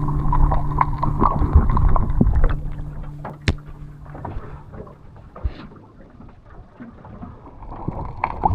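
Sounds aboard a small fishing boat: a steady low hum that stops about four seconds in, followed by quieter scattered knocks and clicks of handling on deck, with water and wind noise.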